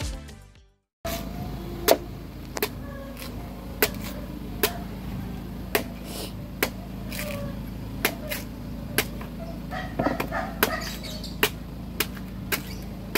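Machete chopping into the husk of a green young coconut, a string of sharp, separate chops every half second to a second, over a steady low hum. A music intro fades out at the start, and the chopping begins after a moment of silence.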